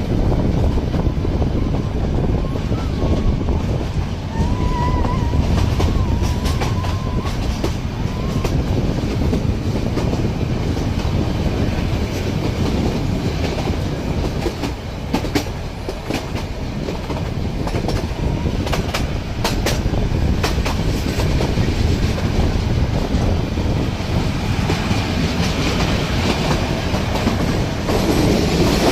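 Nilgiri Mountain Railway metre-gauge toy train running, a steady rumble with the clickety-clack of wheels over rail joints and a faint wavering wheel squeal a few seconds in.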